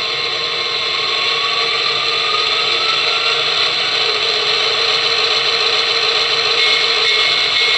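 Lionel Railsounds II soundboard playing its diesel engine sound through the model locomotive's small speaker, revved up from idle as track voltage is raised to about 7 or 8 volts. A whine rises slowly over the first few seconds, then the engine sound holds steady at the higher throttle.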